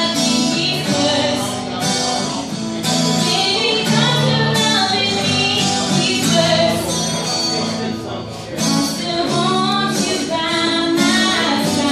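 A woman singing into a microphone, accompanied by an acoustic guitar.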